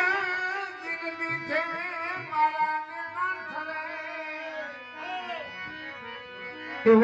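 Devotional bhajan music: a voice sings a long, wordless, ornamented line that glides up and down over a held drone, with tabla strokes underneath. A fresh loud entry comes in near the end.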